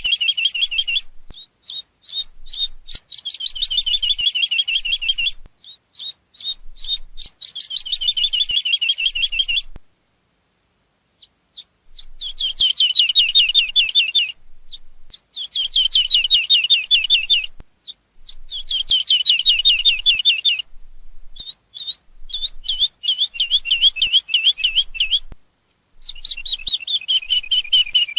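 Eurasian skylark singing: fast, high trilled phrases of two to three seconds each, many dropping a little in pitch, separated by short pauses, with a longer break about ten seconds in.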